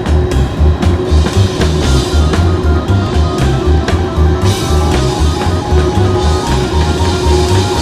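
Background music: an instrumental rock track with drum kit, bass and guitar keeping a steady beat.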